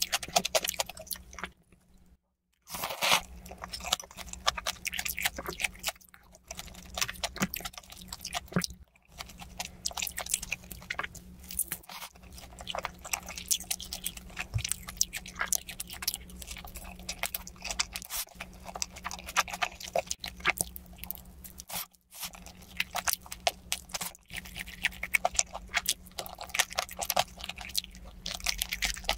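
Close-miked eating: crunchy bites and wet chewing of red-glazed fried chicken, a dense run of crackles and clicks broken by a few short silent gaps.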